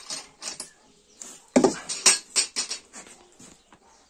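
Plastic feed buckets and their lids knocking and scraping as they are handled, a quick run of clatters that is loudest in the middle.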